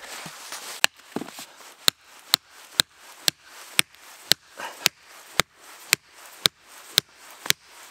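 Axe striking wood in a steady rhythm: a dozen or so sharp blows, about two a second.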